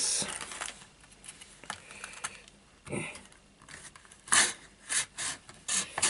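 Large knife blade cutting through a clear plastic blister pack. A scrape comes at the start, then a few short, sharp plastic crackles, the loudest about four seconds in.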